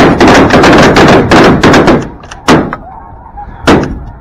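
Volley of shotgun fire from several hunters at once: rapid, overlapping shots for about two seconds, then two more single shots a little over a second apart. Faint snow goose honking sounds underneath near the end.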